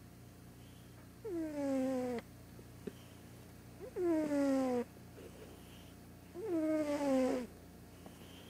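A domestic cat snoring loudly in its sleep: three snores, each about a second long and about two and a half seconds apart. Each snore is a tone that slides down in pitch.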